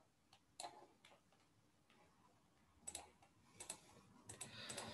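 A few faint, sharp computer mouse clicks, scattered over near silence: one about half a second in, two more around three seconds, and a small cluster near the end.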